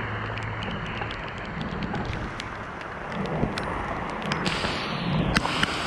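Heavy rain pouring steadily onto creek water and foliage, with many sharp drip clicks of single drops striking close by.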